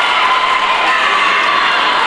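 Crowd of spectators shouting and cheering, loud and steady, many voices overlapping.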